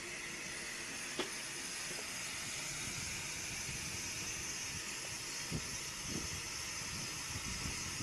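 Steady hiss of steam escaping from an Aveling and Porter steam road roller, with a sharp click about a second in and a few soft knocks in the second half.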